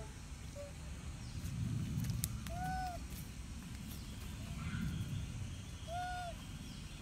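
Two short hooting animal calls, each rising and falling in pitch, about three and a half seconds apart, over a low rumble that swells twice.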